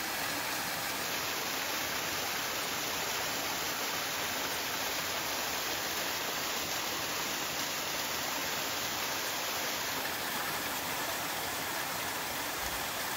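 A marsh-fed stream flowing strongly as it pours out from a beaver dam, a steady rushing of water with no change in level.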